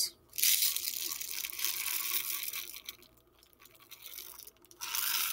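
Rainbow sprinkles shaken out of a clear plastic tub, a dense rattle of tiny grains against the plastic as they pour onto a bowl of mushed Oreos. One long shake of about three seconds, then a shorter one near the end.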